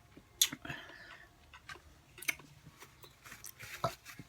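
A person chewing quietly with the mouth, with three sharp smacking clicks spread across a few seconds.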